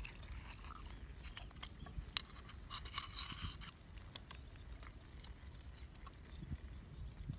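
Faint clicks and scrapes of a bamboo skewer and knife working meat out of snail shells, with a run of thin, high, arching chirps from a bird in the first half.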